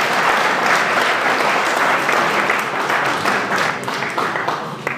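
A large crowd applauding, the clapping thinning out and dying away over the last second or so.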